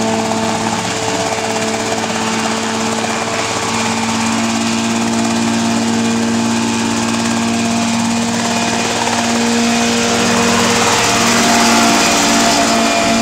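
Helicopter running close by: the steady whir of engine and rotor, with a constant hum. It swells slightly a little before the end.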